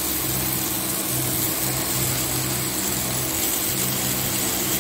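Potatoes, pointed gourd and spice masala sizzling as they fry in a kadai: a steady hiss, with a steady low hum underneath.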